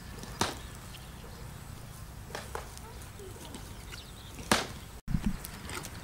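Scattered sharp knocks and taps of a bamboo spit being handled and pushed through a whole plucked duck, over a steady low rumble. The loudest knock comes about four and a half seconds in, followed by a brief cut-out and a low thump.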